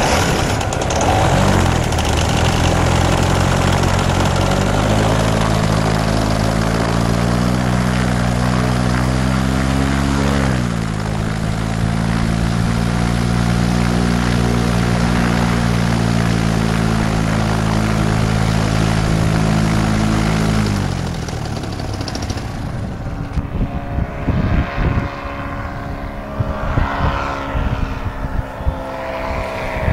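Paramotor engine and propeller running, its pitch stepping up about four seconds in and rising briefly near ten seconds, then cutting out about two-thirds of the way through. Wind buffets the microphone after that.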